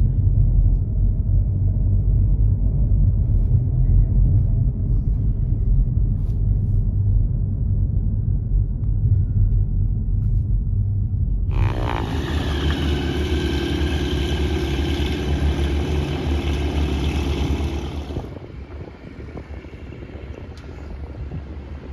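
Low steady rumble of a car driving at low speed, heard from inside the cabin. About halfway it gives way abruptly to a brighter noise with a few steady tones that cuts off suddenly some seven seconds later, leaving a quieter outdoor noise near the end.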